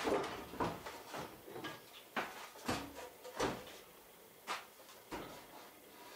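Wooden knocks and clunks of a board being handled and set against a wooden wall, about eight separate knocks, fewer and softer toward the end.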